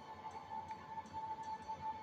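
Faint background music, with one steady high note held.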